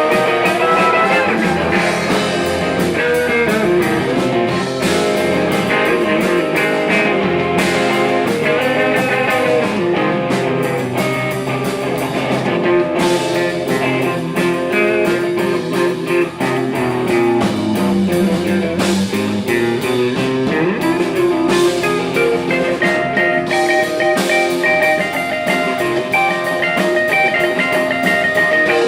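Blues-rock music led by an electric guitar, with bending lead notes over a steady beat.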